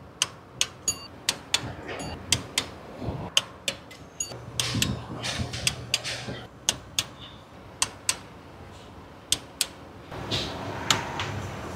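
Hand torque wrench ratcheting in sharp, irregular clicks, some with a brief metallic ring, as bolts are tightened to torque spec, with rustling handling noise in between.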